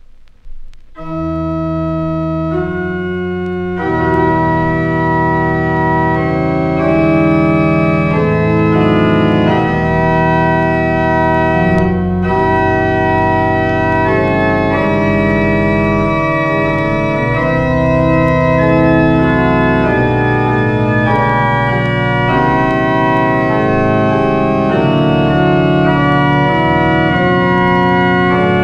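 Schwenkedel pipe organ of Solesmes Abbey playing a slow piece in E minor on the classical fond d'orgue registration (foundation stops: principals and bourdons over a 16-foot bourdon). Full, sustained chords enter about a second in and move slowly, played back from a vinyl LP.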